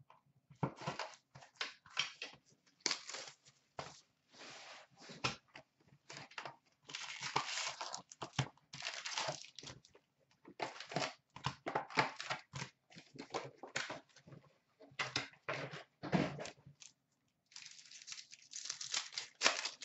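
A sealed box of hockey card packs being slit open, its packs lifted out and a pack wrapper torn open: crinkling and tearing of wrap and wrappers in irregular bursts, with cardboard being handled.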